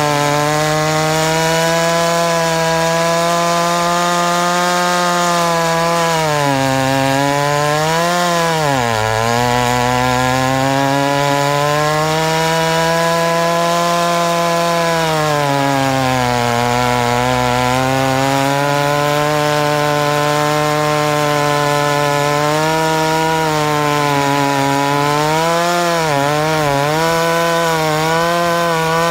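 Homelite 650 two-stroke chainsaw with a 50-inch bar running at high throttle while cutting through a large white oak trunk. The engine's pitch sags several times under the load of the cut, most deeply about a third of the way in, and wavers near the end.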